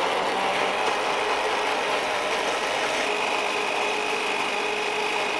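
Countertop electric blender running steadily at full speed, a motor whine over an even whir, blending grated cheddar, eggs and cream into a smooth batter.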